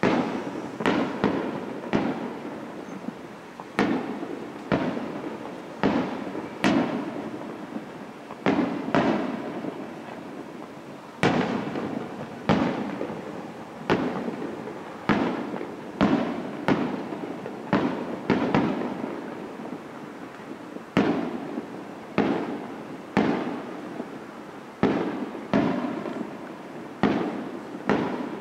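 Aerial firework shells bursting one after another, roughly a bang a second and sometimes two close together, each bang dying away in a long echo.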